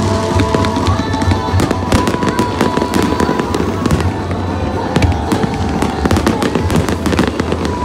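Aerial fireworks bursting overhead, with many sharp crackles and pops in quick succession and music playing underneath.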